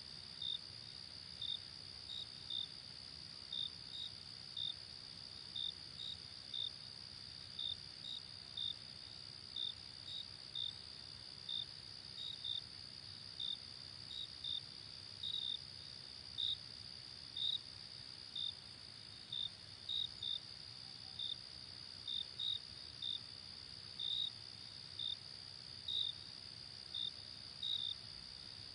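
Crickets chirping: short, high chirps about one and a half a second over a steady high-pitched trill, with a faint low rumble underneath.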